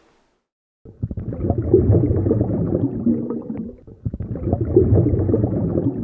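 Muffled bubbling and gurgling of water. It starts about a second in and swells in two waves about three seconds apart.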